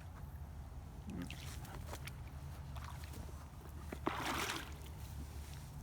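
Water sloshing and splashing as a magnet-fishing rope and magnet are worked in the water, with scattered small knocks and a louder splash about four seconds in, over a steady low rumble.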